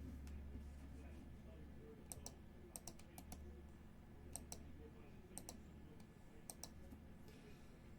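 Faint, sharp clicks, about a dozen, several in quick pairs, over a low steady hum.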